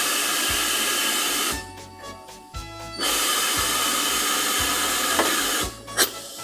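Two long, loud bursts of hissing steam from a steam locomotive, the first lasting about a second and a half and the second nearly three seconds, with a sharp click about six seconds in. Background music with piano-like notes plays throughout.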